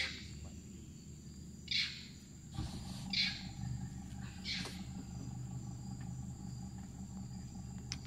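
Wild monkeys giving alarm calls: three short, sharp calls about a second and a half apart, a warning of a crocodile in the river. A steady high insect drone runs underneath.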